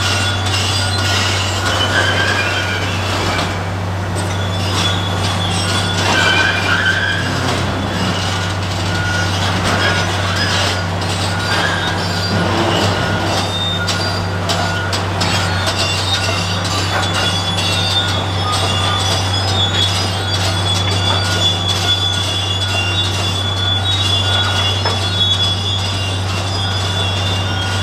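Komatsu PC1250 demolition excavator's diesel engine running with a steady low drone. Over it come high metallic squeals and scattered clanks from the grapple working steel scrap and rubble.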